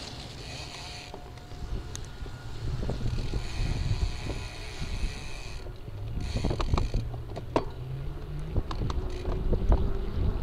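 Bicycle rolling along an asphalt road, heard from a camera mounted on the bike: a knobby tyre rumbling on the pavement and wind on the microphone, with scattered clicks and rattles. The rumble grows louder from about three seconds in.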